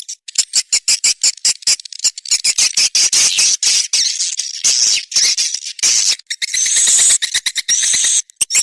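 Swiftlet lure sound: edible-nest swiftlet calls, a dense, rapid chattering of clicks and chirps, with a few short rising whistles near the end. This is the playback used in swiftlet houses to draw the birds in to roost and nest.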